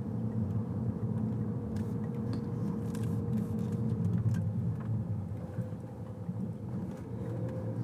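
Steady low road and engine noise heard from inside a moving car, with a faint steady whine that fades out about halfway through.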